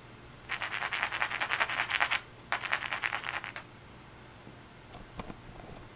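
Rapid scraping against the edge of a flint core, in two runs of quick rasping strokes, about a dozen a second, each lasting a second or so.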